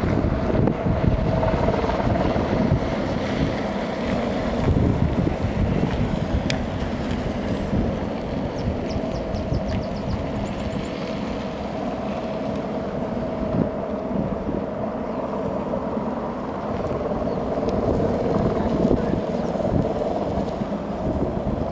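Firefighting helicopter hovering with a water bucket on a long line, its rotor and turbine making a steady drone with a constant whine, mixed with wind buffeting the microphone.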